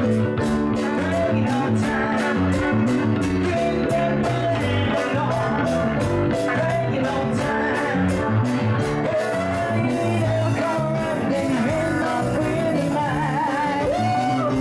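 Amplified live band: a man singing into a microphone over electric guitar, bass and keyboard, with a steady beat.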